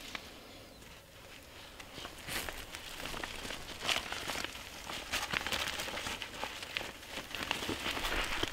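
A dark plastic sheet being folded by hand, crinkling and rustling irregularly. It starts about two seconds in and grows louder toward the end.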